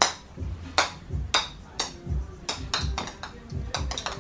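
Small plastic toy balls bouncing and skittering on a hard tile floor: about ten sharp, irregular clicks over dull low thuds.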